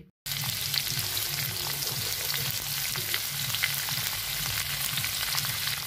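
Chopped green chillies and whole spices (cumin, black pepper, fenugreek seeds) sizzling and crackling steadily in hot oil in an iron kadhai, the tempering for kadhi.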